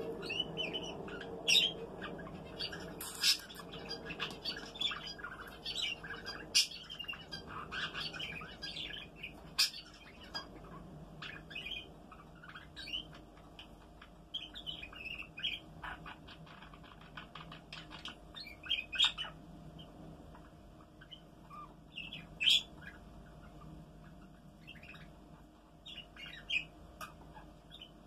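Domestic canary chirping and calling in short, sharp notes, thick and busy for the first ten seconds or so, then scattered.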